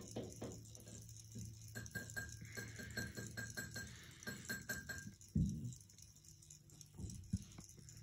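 Harbor Breeze Classic ceiling fan running fast while resting on a workbench: a faint steady motor hum with light clicking and rattling. A thump comes about five seconds in, and a smaller one near the end.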